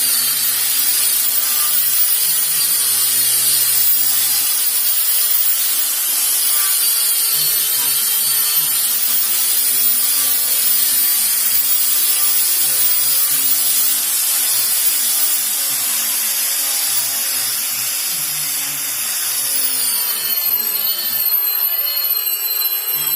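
Electric power sander running against wood: a steady high whine over a scratchy abrading noise. The whine drops a little in pitch near the end.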